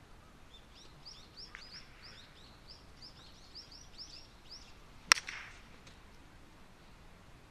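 A wooden park golf club strikes the ball once with a single sharp crack about five seconds in. Before it, a small bird gives a rapid run of high chirps.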